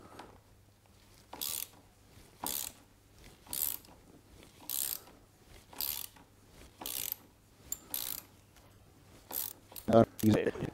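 Socket ratchet clicking in short bursts about once a second as it is swung back and forth, loosening a BMW R1200GS paralever pivot bolt. A louder knock comes near the end.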